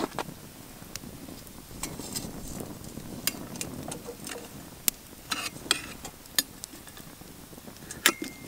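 Scattered metal clinks and taps as a black kettle is hung on a metal rod over a small wood campfire and its handle shifted along the rod. The loudest clink comes near the end and rings briefly.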